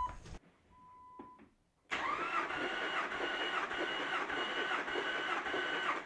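Starter motor cranking a Jeep Wrangler's 4.0-litre straight-six over for about four seconds with the throttle held wide open, a steady rhythmic whine, for a compression test on cylinder 4. A short electronic beep comes about a second before the cranking.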